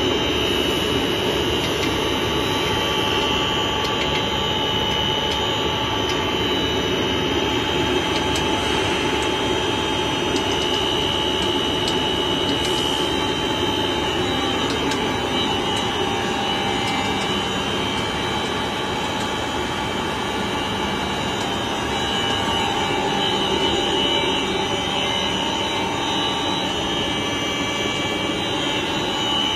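Double-layer film blowing machine running steadily: an even rush of cooling air from its air-ring blower, with a few steady whining tones over it.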